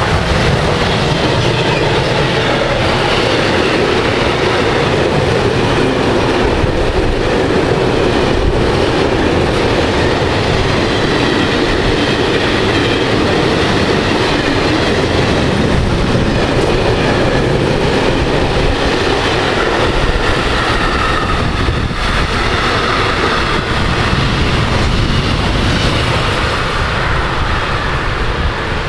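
Freight train wagons rolling past close by: a steady rumble and clatter of steel wheels on the rails, with a few sharp knocks along the way. The sound eases slightly near the end as the last wagons go by.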